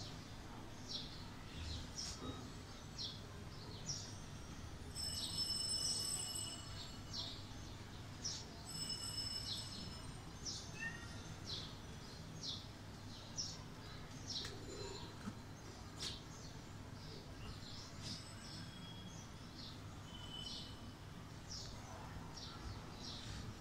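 Small birds chirping over and over in short high notes, one or two a second, with a longer held note twice, over a low steady background hum.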